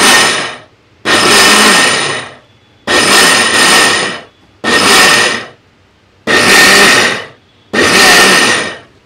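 1000 W mixer grinder pulsed in short bursts, six about a second long each with brief pauses between, its motor whining up and the blades churning soaked rice in the large jar. This is inching: pulsing to break up the soaked idli rice before water is added and it is run on first speed.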